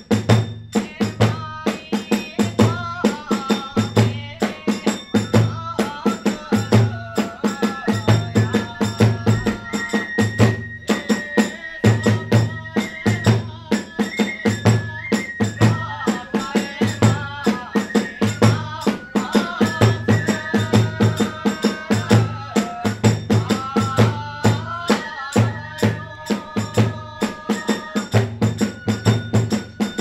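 Kagura festival music: a large drum keeping a steady beat, a bamboo flute playing a wavering melody above it, and small hand cymbals clashing in time.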